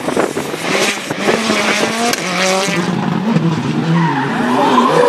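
Hyundai i20 R5 rally car's turbocharged four-cylinder engine revving hard, its pitch rising and falling repeatedly through the gears as the car drives through a corner, with tyre noise on the road surface.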